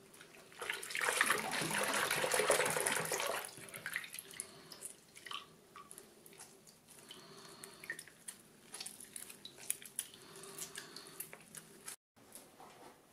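Cold water running from a bathroom sink tap over hands rinsing a lump of slime, loudest for the first few seconds. After that it is quieter, with small wet clicks and drips as the slime is squeezed in the hands. The sound cuts off abruptly near the end.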